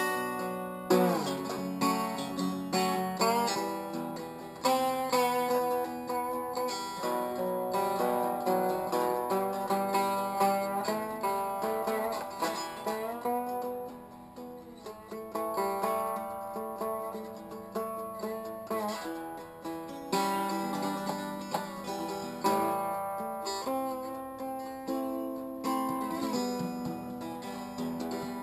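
Lap steel guitar played solo, plucked notes and chords ringing and gliding between pitches under the slide bar, with a downward slide about a second in.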